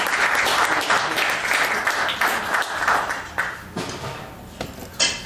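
Audience applauding, the clapping dying away over about four seconds. A single sharp hit on the drum kit comes near the end.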